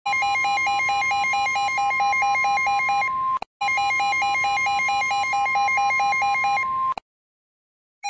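Electronic emergency-alert alarm tone: a steady high tone over a rapidly warbling lower tone, ringing like a telephone. It sounds in two bursts of about three seconds each with a brief break between, and cuts off about a second before the end.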